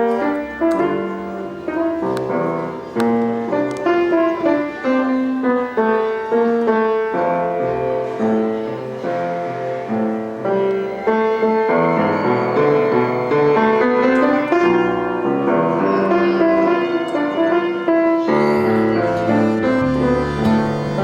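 Instrumental music led by piano, a run of struck notes and chords at a lively, even pace.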